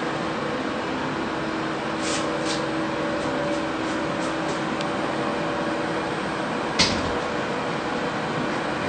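A glass shower side panel is handled in its metal track, giving a few faint clicks and one sharper knock about seven seconds in, over a steady low hum.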